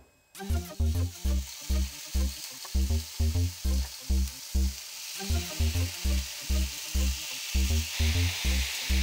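Raw chicken skewers sizzling on an oiled hot griddle pan. The sizzle starts a moment in, as the skewer is laid down, and grows louder near the end. Background music with a steady low beat plays under it.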